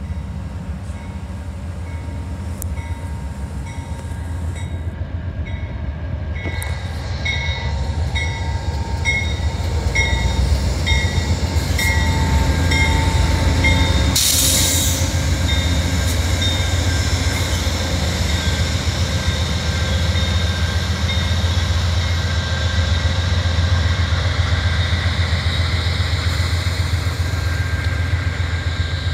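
Amtrak GE P42DC diesel locomotive passing close with its diesel engine running as a steady low drone, its bell ringing in even strokes through the first half. The drone grows louder as the locomotive draws level about halfway through, then the passenger cars roll by.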